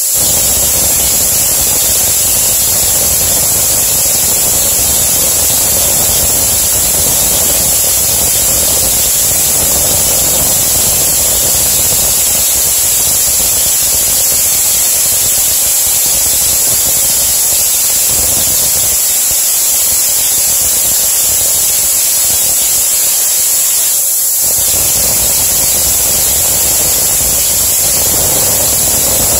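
Drywall texture hopper gun spraying: compressed air hissing steadily and loudly through the nozzle as texture mud is blown onto the wall, with one brief break late on.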